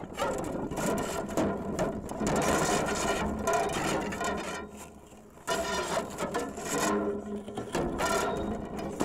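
Seven-rod carbon fiber sound sculpture with a 3D-printed PLA core being rolled and dragged over rocks, its rods scraping and rubbing in a dense rasping clatter with some ringing tones. It fades away about halfway through, then starts again suddenly.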